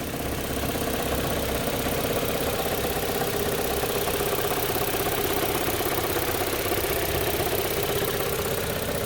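Audi 1.8-litre AEB turbo four-cylinder engine idling steadily, with a faint tapping that the owner hopes is not a damaged lifter.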